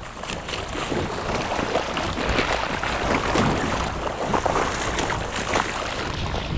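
Steady noise of wind and water on an open boat, with the wind buffeting the microphone.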